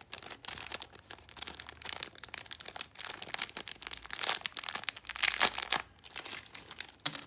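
Thin plastic packet crinkling and rustling in irregular bursts as it is handled and pulled open, loudest about four and five and a half seconds in.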